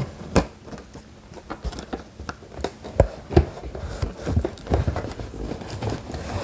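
Irregular taps, knocks and light rustles of cardboard and paper packaging being handled and moved around, the strongest knocks near the start and about three seconds in.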